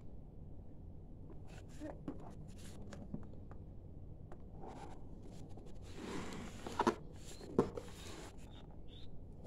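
Cardboard box of glass cups and saucers being handled and turned over in the hands, with scattered scraping and rustling of card against skin. About two-thirds of the way through come two sharper knocks, a little under a second apart.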